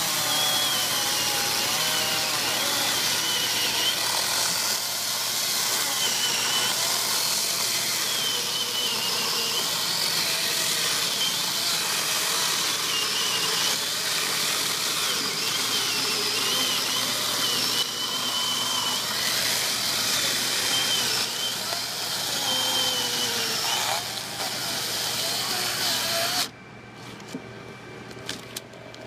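Makita HCU02ZX2 36V (two 18V LXT batteries) cordless 12-inch chainsaw running and cutting through a log, its electric motor's pitch wavering as the chain bogs and recovers in the wood. It cuts off suddenly a few seconds before the end.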